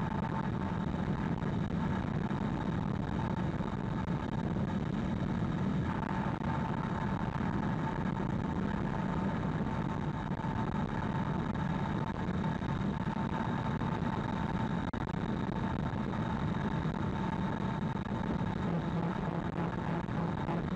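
Steady road and wind noise of a 2020 Hyundai Ioniq Electric cruising at expressway speed, with a steady mid-pitched hum and a fainter high whine over it.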